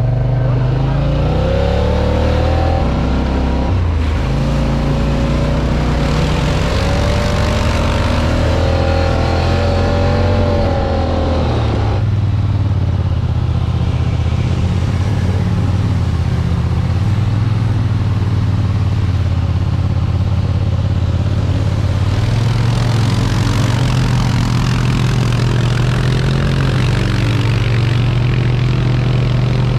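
Off-road utility vehicle engine running under varying throttle. Its pitch rises and falls over the first twelve seconds, then holds a steadier, heavier note.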